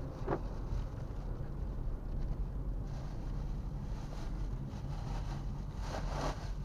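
Steady low rumble of a car driving, road and engine noise heard from inside the cabin. Two short, louder sounds stand out, one right at the start and another about six seconds in.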